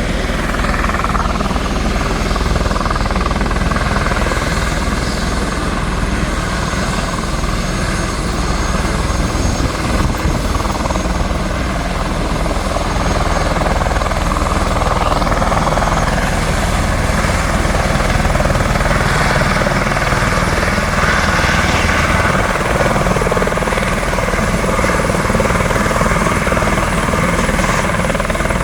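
Helicopter running close by with a steady, loud rotor and engine sound, growing a little louder about halfway through.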